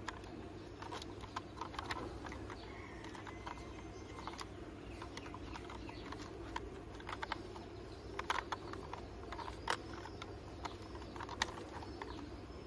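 Scattered light clicks and taps of a plastic toy ambulance being handled and turned over in the hands, irregular and clustered in short runs, over a steady low hum.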